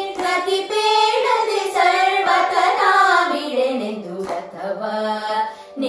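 Three women singing a Kannada devotional bhajan together, drawing out a long melismatic phrase without clear words; the melody glides downward about three to four seconds in. A steady drone tone sits underneath.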